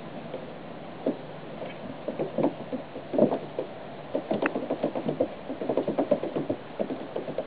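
Irregular light knocks and taps on hollow plastic: a kitten's paws scrabbling and slipping on a plastic slide. The taps are sparse at first and come thick and fast from about four seconds in.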